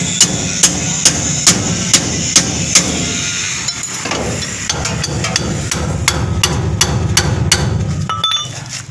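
Hydraulic jack being pumped by its long handle, a sharp metallic click on each stroke about twice a second, then more uneven clicks, lifting the chassis off the leaf spring to take the load off the spring shackle. A steady low hum runs underneath.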